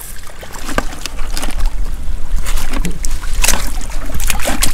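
Shallow seawater sloshing and splashing among rocks, with several sharp splashes, the loudest about three and a half seconds in and near the end, over a steady low rumble.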